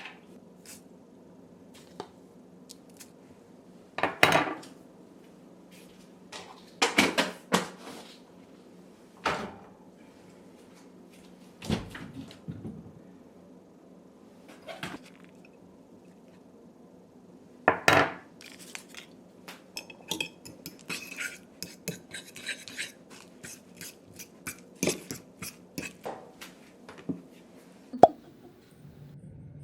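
Dishes and utensils being handled: scattered sharp clinks and knocks, some in quick clusters, over a low steady hum.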